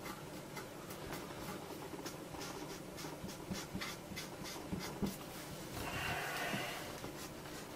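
Faint scratching and small scattered clicks of a hand handling a computer motherboard, with a short breath about six seconds in.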